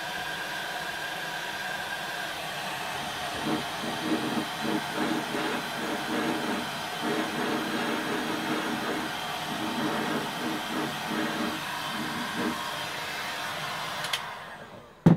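Electric heat gun blowing hot air steadily onto polyethylene to soften it for plastic welding, a hiss with an uneven pulsing midway as the airflow is played over the plastic. It winds down about 14 seconds in, followed by one sharp knock.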